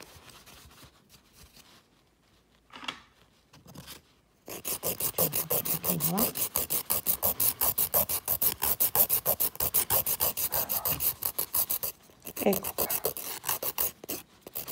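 A 100/180 nail file rasping back and forth across a gel fingernail in rapid, even strokes, shortening the nail. The filing starts about four seconds in and pauses briefly near the end before carrying on.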